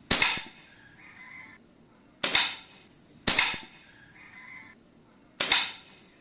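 Four shots from a .177 PCP air rifle fitted with a carbon-fibre silencer. Each is a sharp pop with a short fading hiss, the shots coming irregularly one to two seconds apart.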